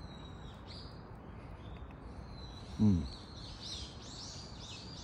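Birds chirping, with a quick run of repeated high chirps in the second half. About three seconds in, a short hummed 'mm' from a person eating.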